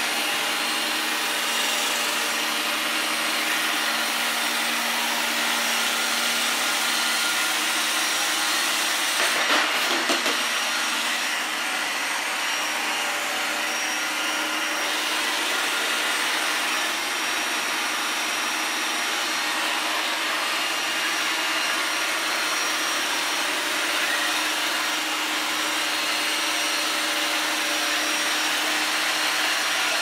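iRobot Roomba 980 robot vacuum running steadily while cleaning along wall edges and corners: an even whir of its suction motor and brushes with a few faint steady tones. About ten seconds in there is a brief, louder rattle.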